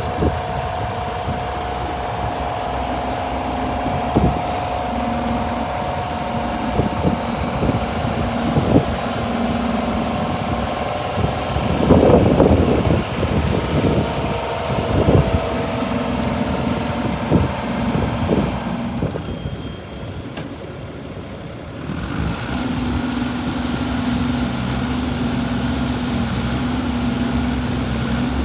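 Kobelco SK25SR-6E mini excavator's diesel engine running, with repeated knocks and clunks from the machine at work and a loud, rough stretch about twelve seconds in. It drops quieter for a couple of seconds, then runs on at a steady, even note.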